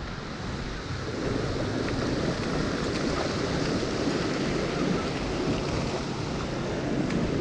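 Glacial meltwater stream rushing across the road: a steady, dense rush of water that gets a little louder about a second in.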